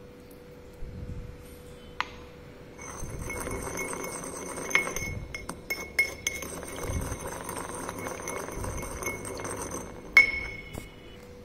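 Porcelain pestle stirring and grinding wet magnesium carbonate powder in a porcelain mortar: a steady scraping with ringing clinks, broken by sharp knocks of the pestle on the bowl, the loudest about ten seconds in.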